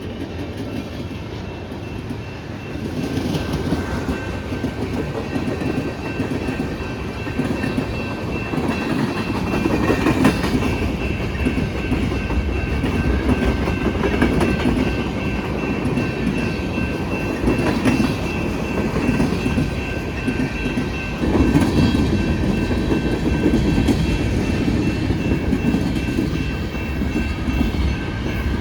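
Freight train rolling past: wheels clicking over the rail joints over a steady heavy rumble, with a faint steady high-pitched tone held throughout. It gets louder about three seconds in and again about twenty-one seconds in.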